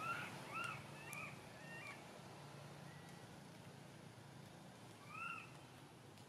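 Baby macaque crying: four short, arched squealing calls in quick succession, then one more about five seconds in.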